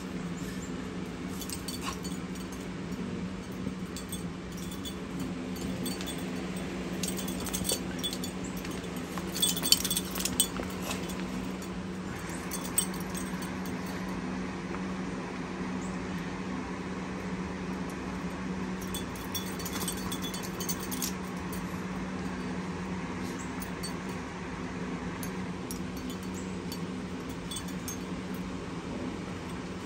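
Puppies and a dog scuffling in play, with light metallic jingling and clinking in bursts now and then, over a steady low mechanical hum.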